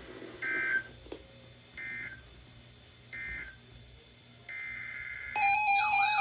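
Three short bursts of NOAA Weather Radio SAME data tones, about a second and a half apart, mark the end of the severe thunderstorm warning. A longer data burst then starts, the header of the next alert. About five seconds in, a loud warbling electronic alert tone comes in over it.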